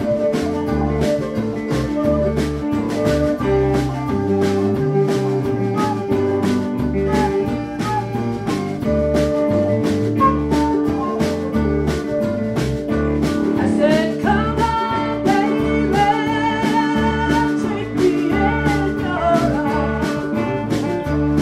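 Small blues band playing live: electric bass, guitar and drums in a steady beat, with a lead melody line bending up and down over the top about two-thirds of the way through.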